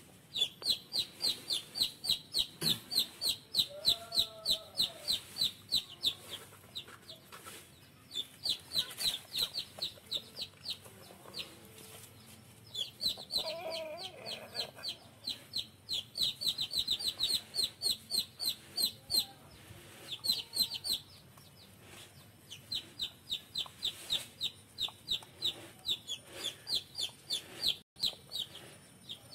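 Chickens calling: runs of high, short peeps repeating about four times a second, several seconds at a stretch with short pauses between. A lower bending call comes about four seconds in and again about fourteen seconds in.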